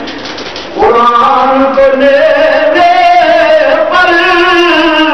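Man's voice chanting in long, drawn-out melodic lines with a slight waver on the held notes, after a short break for breath in the first second.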